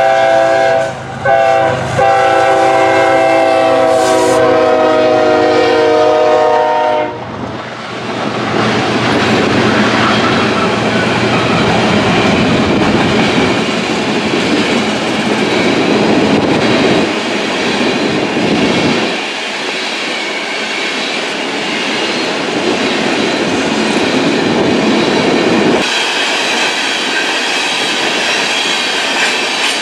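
BNSF diesel locomotive's multi-chime air horn blowing a long chord, broken twice briefly in the first two seconds and stopping about seven seconds in. Then the coal hopper cars roll past with steady clickety-clack of wheels over rail joints and rumbling wheel noise.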